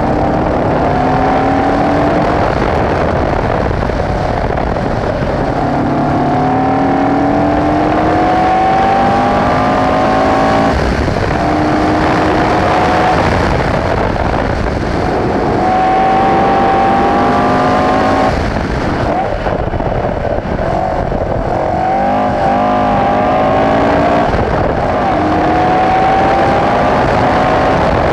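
Alfa Romeo 1490 cc boxer (flat-four) engine of a Le Gallen LLG82 historic racing prototype, heard onboard at racing speed. It revs up through the gears, climbing in pitch and dropping back at each upshift several times over, with a stretch of falling and wavering revs as it slows through corners.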